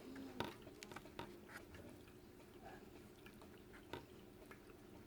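Faint soft crackles and squishes of moist potting soil being pressed by hand around a fern cutting, with a few small clicks.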